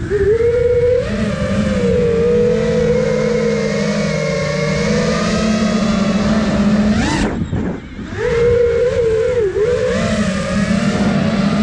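Brushless motors and propellers of an iFlight Nazgul Evoque 5-inch FPV quadcopter buzzing in flight, heard from the drone's onboard camera. The pitch wavers with the throttle. About seven seconds in it surges sharply upward, then drops off briefly before picking back up.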